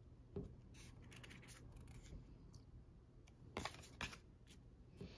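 Faint taps and slides of tarot cards being dealt off the deck and laid on a wooden table: a few soft clicks, the loudest pair about three and a half to four seconds in.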